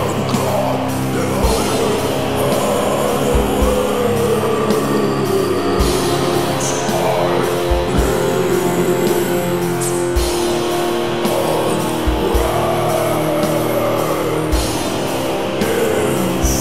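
Funeral doom metal: slow, heavy held chords from distorted guitars with a wavering melodic line over them, marked by sparse deep drum hits every second or two.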